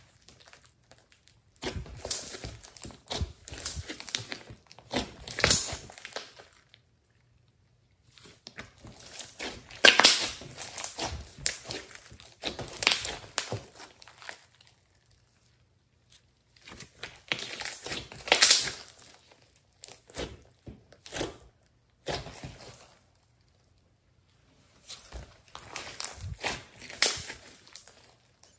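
Hands squeezing, pressing and stretching a large lump of slime with clay mixed in: sticky crackling and popping in bursts of a few seconds, with pauses of about two seconds between.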